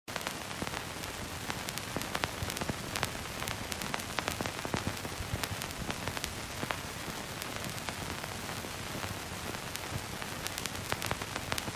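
Steady hiss with scattered irregular clicks and crackles, the surface noise of an old film soundtrack.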